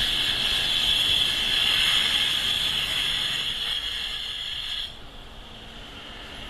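A steady hiss, strongest high in pitch, that cuts off sharply about five seconds in, leaving a fainter background hiss.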